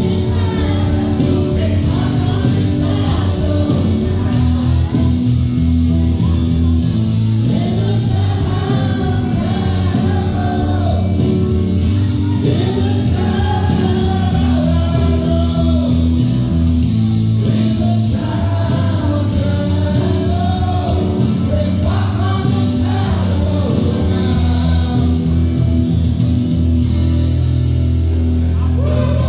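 Karaoke: live singing into a handheld microphone over a loud backing track with bass and guitar.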